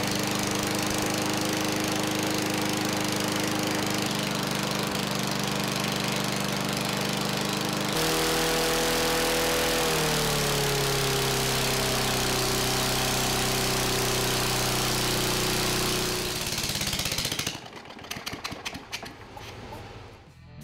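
Small single-cylinder lawn mower engine running at wide open throttle under load, lubricated with WD-40 in place of motor oil. About ten seconds in its pitch drops and settles lower, and it fades out a few seconds before the end.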